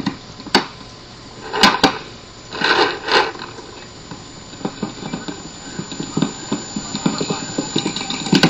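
Paintball markers firing on the field: sharp single pops about half a second in, short noisy strings of shots around two and three seconds in, and another pop near the end. Softer, irregular taps fill the second half.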